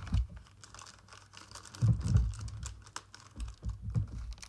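Foil card-pack wrappers and cards being handled on a cloth-covered table: light crinkling and quick clicky ticks, with a few dull thumps about two seconds in and again near the end.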